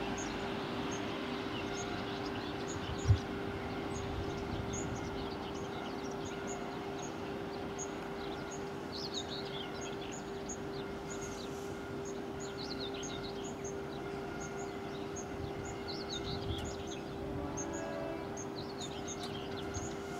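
Class 185 diesel multiple unit running away into the distance, a steady hum under birdsong and chirping. A single low thump about three seconds in is the loudest sound.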